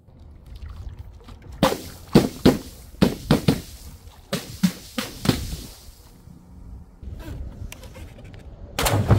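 Liquid-filled balloons dropping onto a diamond-plate steel sheet, landing and bouncing in a run of about ten sharp slaps over a few seconds. Near the end a large water balloon drops into a tub of coloured liquid and bursts with a loud splash.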